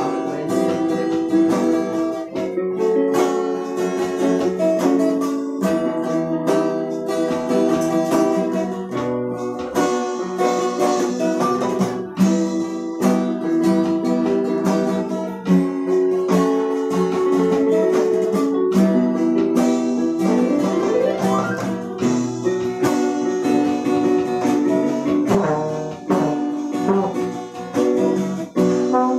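A dangdut band playing together without amplification: acoustic guitar strumming, with keyboards and a trombone playing a melody over it and short percussive strokes marking a steady beat.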